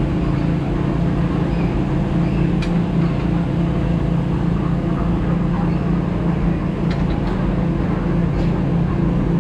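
Cable car (teleférico) running: a steady low mechanical hum with a constant drone and a few faint clicks.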